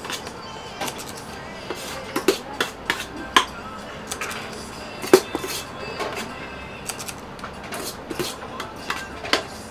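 Metal utensils clinking and tapping against an electric griddle while soufflé pancake batter is portioned: irregular sharp clicks and knocks, a few a second, with a louder knock now and then.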